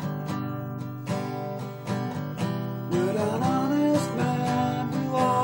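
Acoustic guitar strummed in a steady rhythm, with a man's voice coming in singing over it about three seconds in.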